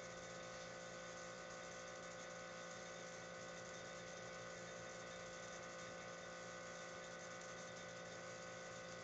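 Steady electrical hum made of several constant tones over a faint hiss, from the high-voltage setup powering a homemade electrostatic ion engine as it runs.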